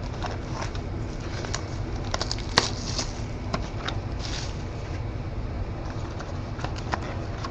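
Trading card packs and cards being handled: light scattered clicks, rustles and wrapper crinkles over a steady low hum.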